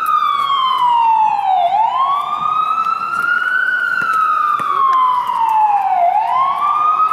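Emergency vehicle siren in a slow wail, its pitch falling and rising about once every four and a half seconds, dipping lowest twice.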